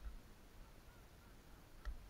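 Faint, scattered duck calls over a near-silent background, with one short sharp knock near the end.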